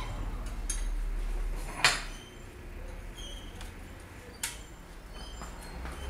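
Metal clinks and clicks of a socket wrench working the engine-mount bolt: one sharp metallic clank a bit under two seconds in, another about halfway through, with lighter ticks between.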